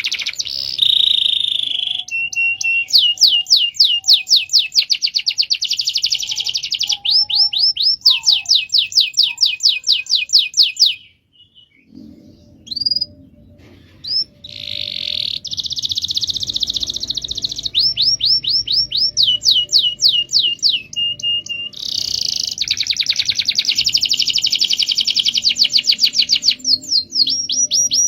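Domestic canary singing a long rolling song: fast runs of rapidly repeated high notes, each trill held for a second or more before switching to another. There is a short break about eleven seconds in, then the trills resume.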